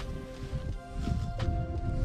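Background music with held tones and a few sharp beats.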